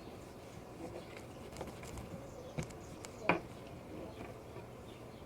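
Scattered soft taps and clicks of Play-Doh being worked with rolling pins and knives, with one louder tap about three seconds in.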